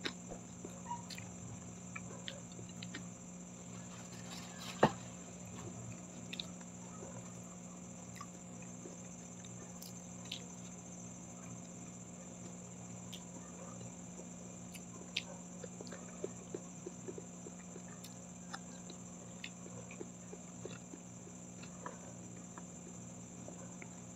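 Close-miked eating sounds: crispy fried milkfish (daing na bangus) torn apart by hand and chewed, giving scattered small crackles and clicks, with one sharp, louder click about five seconds in. A steady low hum runs underneath.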